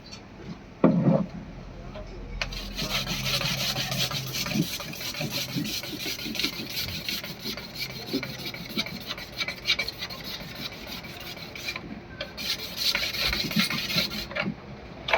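Hand sanding of an old plastic headlight lens, rubbed back and forth to take out the scratch lines. It starts a couple of seconds in, pauses briefly, resumes, then stops near the end. A short knock comes about a second in.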